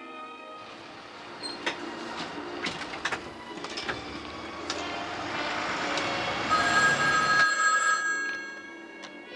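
A push-button desk telephone ringing about six and a half seconds in, a steady electronic ring lasting over a second. Before it comes a noisy stretch with scattered clicks and knocks.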